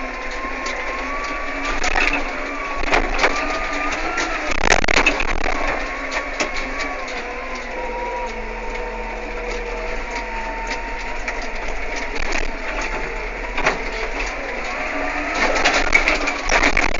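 Tractor running, heard from inside the cab while it drives: a steady engine drone with a whine that wavers slightly in pitch. Clusters of rattling and knocking from the cab are loudest about two to five seconds in and again near the end.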